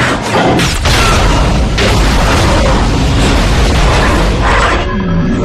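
Film action sound effects of a giant robot crashing through an explosion: a boom with dense metallic crashing and scraping. It is loud throughout, with sharp hits in the first two seconds.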